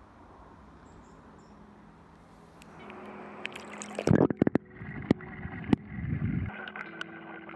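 Water splashing and gurgling as the camera goes under the creek's surface, with a cluster of sharp knocks about four seconds in and another a little before six seconds.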